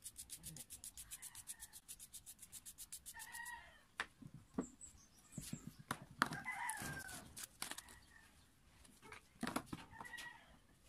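A toothbrush scrubbing an electric-planer armature in quick, even strokes, about ten a second, stopping after about three seconds. Then knocks and clatter of a plastic bottle and tub being handled, while chickens cluck in the background, with a longer gliding call about six seconds in.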